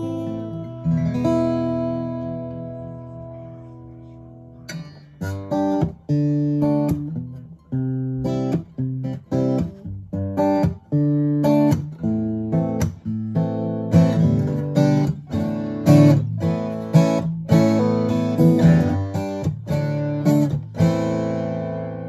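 Martin DRS-1 Road Series dreadnought acoustic guitar being played: a chord rings out and fades over the first few seconds, then about five seconds in a run of short, rhythmic strummed chords begins, roughly two a second, getting louder in the second half.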